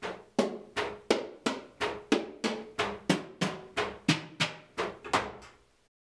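Electronic drum kit played as a raw, basic MIDI recording with room sound, not yet run through high-quality drum samples. Even drum strikes come about three a second, some louder than others, each ringing briefly, and stop shortly before the end.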